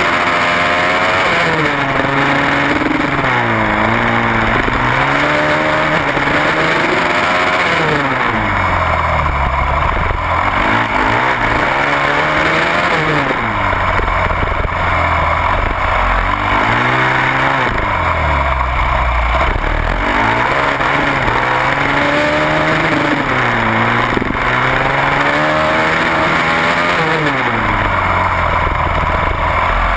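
Supermoto race motorcycle engine heard close up from the bike itself on a track lap, revving up and dropping back again and again, about every four to five seconds, as it accelerates out of corners and shuts off into the next. A steady rushing noise runs under the engine throughout.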